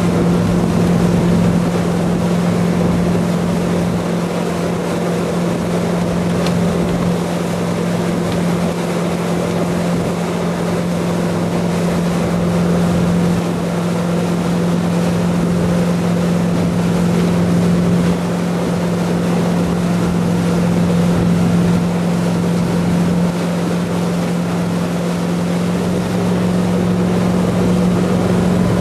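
Centurion Typhoon 23 ft wakeboard boat's engine running steadily at towing speed, with the rush of its churning wake and the wind.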